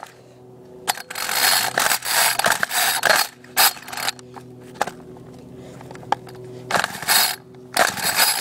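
Recoil starter of a Homelite string trimmer being pulled several times, the rope whirring and ratcheting out on each pull, with no firing from the engine. The engine won't catch, and the owner suspects it is flooded.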